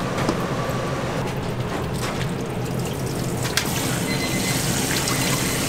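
Tap water pouring into a stainless steel basin of blanched greens as they are rinsed, the splashing growing stronger about three and a half seconds in. A steady low hum runs underneath.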